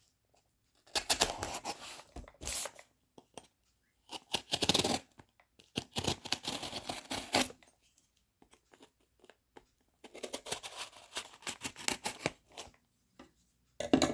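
A folding pocket knife slitting the packing tape on a cardboard box, in several scratchy runs of cutting and tearing separated by short pauses.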